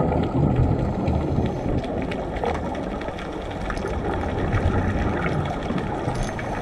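Underwater ambient noise picked up by a camera in its housing: a steady dense low rumble and hiss with scattered faint crackles.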